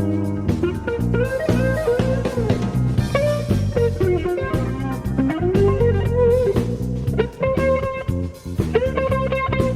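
Cassette recording of a live jazz-fusion band: a guitar solo plays a bending melodic line over drum kit and bass guitar.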